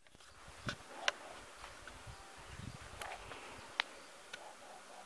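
Faint rustling in grass with a handful of sharp clicks and a stretch of low thumps in the middle, around a tabby cat worrying a mouse it has caught.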